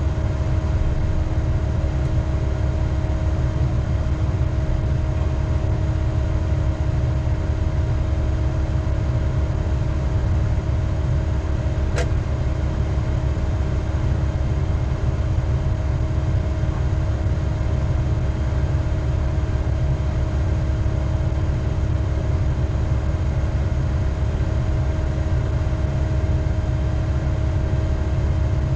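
Log loader's diesel engine idling steadily: a deep rumble with a steady whine on top. One sharp click about twelve seconds in.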